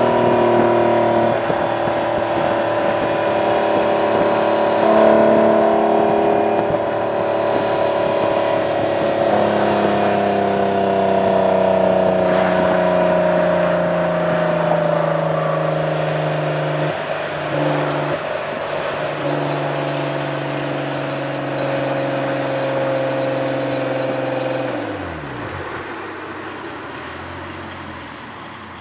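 Exhaust note of a 1998 Acura NSX-T's 3.2-litre V6 through an aftermarket GT Lightweight exhaust, heard close to the tailpipes. It runs steadily at highway cruise with the pitch slowly easing, falters briefly about two-thirds of the way through, then falls away in pitch and loudness near the end as the car slows.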